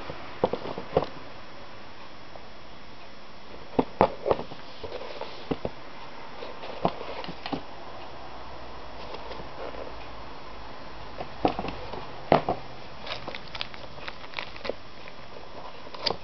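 Handling noise of sneakers and their packaging being turned over by hand: scattered taps, clicks and rustles in small clusters, over a steady hiss.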